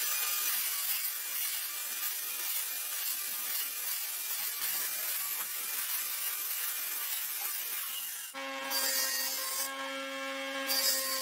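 A steady, toneless rubbing on wood, then about eight seconds in a sliding miter saw's motor starts with a steady whine as the blade works into a wooden beam.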